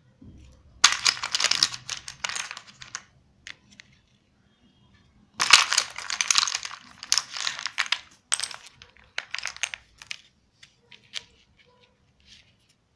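Wooden pattern blocks clicking and clattering as they are handled and set down on a laminated sheet, in two busy spells about a second and five and a half seconds in, then scattered single clicks.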